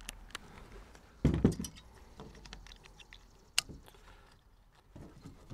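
Handling noises: a cordless impact driver set down on the truck's bed-lined tailgate with a thud about a second in, then a nylon tie-down strap and its plastic buckle worked by hand, with light clicks and rustling and one sharp click past the halfway point.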